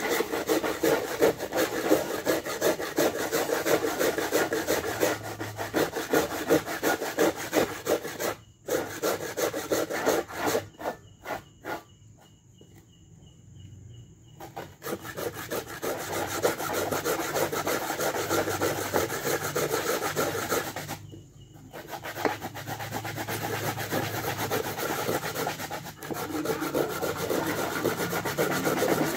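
Coconut being grated by hand on a grater stood in a steel pot: fast, steady rasping strokes. The scraping stops briefly a few times, with a longer lull of scattered single strokes near the middle.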